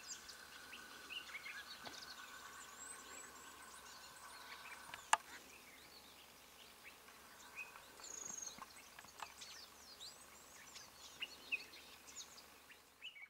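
Faint chorus of many wild birds chirping and calling, with a steady high drone through parts of it and a single sharp click about five seconds in.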